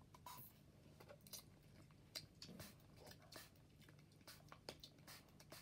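Near silence: room tone with a faint hum and scattered faint short clicks.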